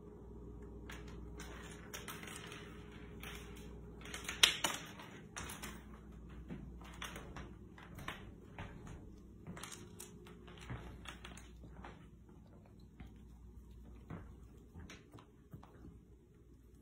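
Irregular rustling and clicking, thickest in the first dozen seconds, with one sharp knock about four and a half seconds in, over a faint steady hum.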